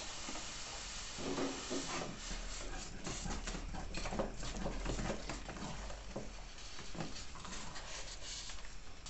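Wooden spoon stirring a thick, creamy chicken filling in a stainless steel pot: many small irregular scraping and squelching strokes over a faint steady hiss.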